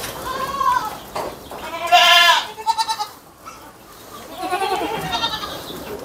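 Goats bleating, several calls one after another, the loudest about two seconds in.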